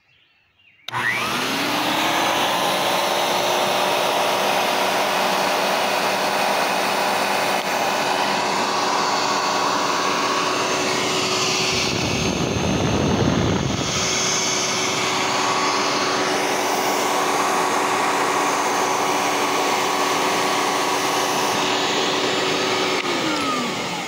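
Vintage 1970s Compact Electra C-9 canister vacuum cleaner switched on about a second in. Its motor spins up to a steady whine, with a rush of air from its exhaust for a couple of seconds midway. Near the end it is switched off and the motor winds down, falling in pitch.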